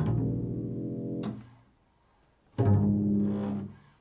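Improvised music on a plucked string instrument: two chords, each struck sharply, ringing for about a second and then damped, with a short gap between them.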